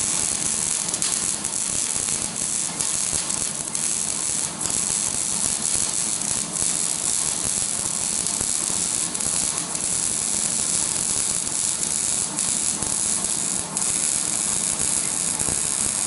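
Electric arc welding: a loud, steady crackling hiss from the arc, which cuts off suddenly right at the end as the arc is broken.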